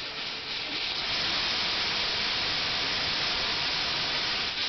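Stovetop Hawkins pressure cooker venting a big jet of steam at the end of cooking, a steady loud hiss that grows louder about a second in as the pressure is let off.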